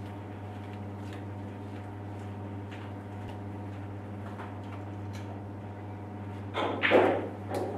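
Steady low machine hum in a small room, with faint ticks, and a brief loud burst of noise near the end.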